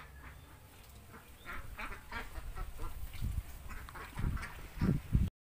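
A flock of ducks quacking in many short, overlapping calls, with a few loud low thumps near the end; the sound cuts off abruptly.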